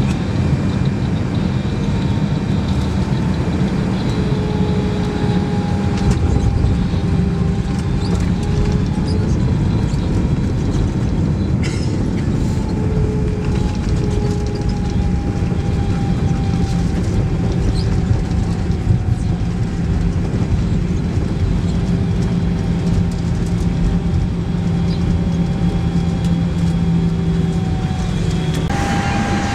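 Airbus A319 cabin noise: the engines and airflow keep up a steady roar with a low rumble, under a faint engine whine that falls slowly in pitch. The sound changes abruptly just before the end.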